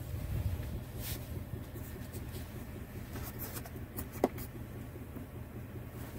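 Low, steady rumble of a Chevrolet Duramax 6.6-litre turbo-diesel V8 running, heard inside the pickup's cab. A few light clicks come through, with a sharper click about four seconds in.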